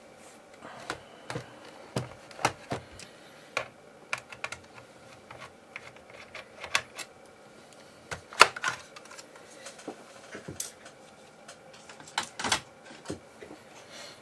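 Irregular clicks and knocks of plastic and metal as the underside of a Sony Vaio laptop is worked on by hand, with its hard drive in a metal caddy lifted out of the drive bay. The loudest knocks come about eight and a half and twelve and a half seconds in.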